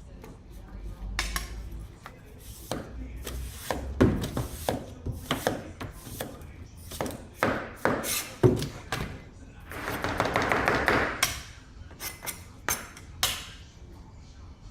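Knife chopping and slicing fruit on a cutting board: a quick, irregular run of sharp strokes, with a longer, denser stretch of noise about ten seconds in.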